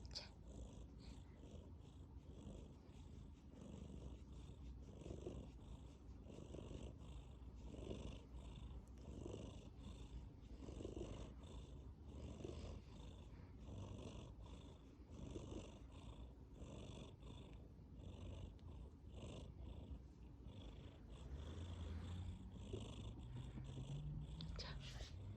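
Domestic cat purring steadily while asleep, its slow breaths repeating about every one and a half seconds with a soft snore on each. The purr grows a little louder near the end.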